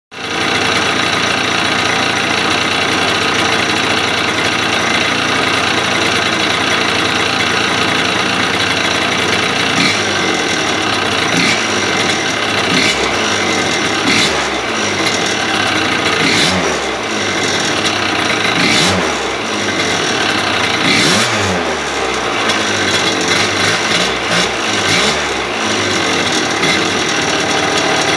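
Minarelli 103cc big-bore two-stroke scooter engine with a custom expansion-chamber exhaust, idling steadily for about the first ten seconds, then revved up and back down about eight times. The rattle and clatter at idle is from its slip-fit crank bearings, which leave the crank with some side-to-side play.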